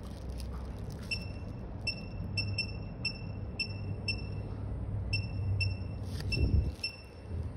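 Short, high electronic beeps from a phone-screen tester, about a dozen at uneven intervals, while a replacement screen assembly is tested. A low steady hum runs underneath, and a dull thump comes near the end.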